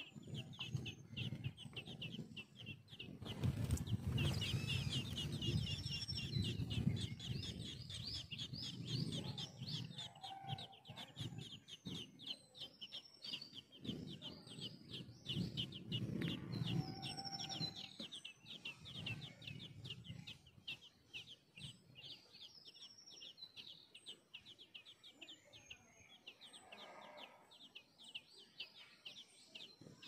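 Thrush nestlings begging at the nest: a dense run of rapid, high cheeps, many a second, that thins out in the last third, over a low rumble.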